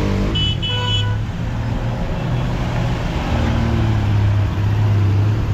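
Road traffic at a bridge: a vehicle horn honks twice in quick succession about half a second in, over a steady low rumble of traffic.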